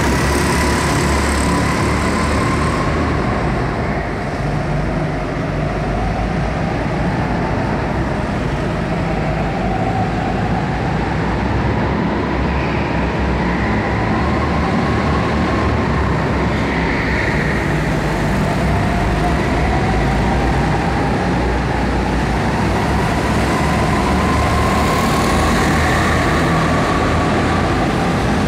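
Go-karts running around an indoor track, their motor pitch slowly rising and falling as the karts speed up and slow down through the circuit.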